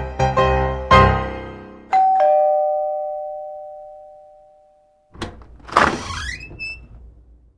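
Piano music breaks off, and a two-tone doorbell chime rings, ding-dong, fading away over about three seconds. About five seconds in, a door is unlatched and opened with a rising squeak.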